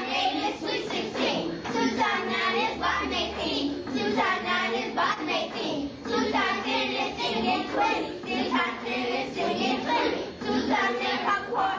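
A group of children chanting a multiplication times-table rap together in a rhythmic sing-song.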